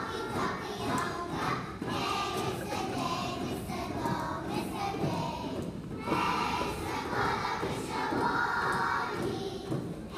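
A large group of young children singing together as a choir, with a short break between phrases about six seconds in.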